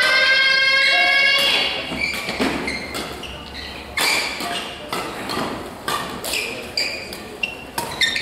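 Badminton rally in a large hall: rackets striking the shuttlecock in sharp hits every second or so, with footfalls and short squeaks on the court floor. A loud drawn-out shout opens it.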